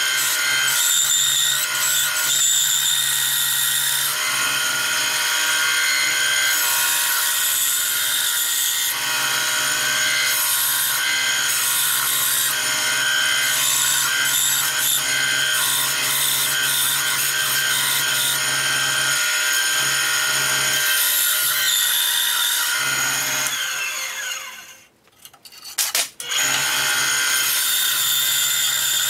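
Benchtop band saw running and cutting a thick oak board: a steady motor hum and blade whine with the rasp of the blade in the wood. The sound drops out for a second or two about four seconds before the end, then comes back.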